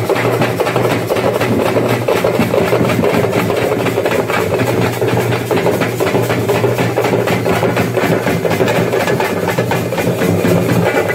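A troupe of parai (thappu) frame drums struck with sticks, beating fast and dense in a steady rhythm, over a steady low hum.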